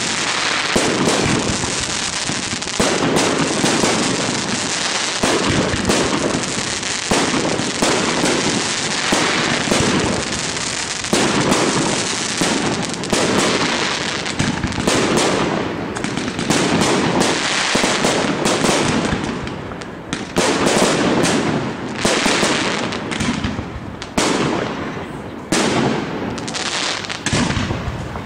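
Aerial fireworks display: a dense, continuous barrage of bangs and crackling shell bursts that breaks into more separate bangs in the second half.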